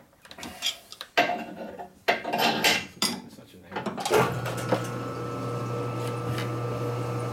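Metal clinks and knocks of tools against metal parts, then about four seconds in a metal lathe's electric motor starts and runs with a steady hum.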